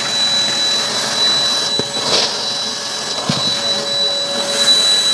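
Vacuum cleaner running steadily with a high whine, its nozzle sucking dust and debris out of a window frame's track.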